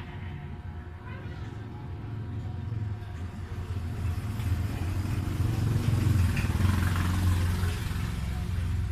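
A motor vehicle's engine running with a low, steady rumble that grows louder over several seconds, then eases a little near the end.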